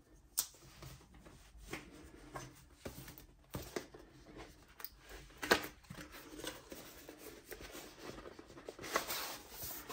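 A keyboard's cardboard retail box being handled and opened: faint rustling and scraping of the cardboard, with a few sharp taps and clicks.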